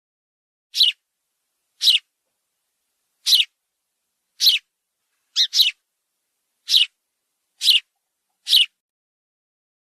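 A bird calling: short, high-pitched calls about once a second, nine in all, two of them close together about halfway through.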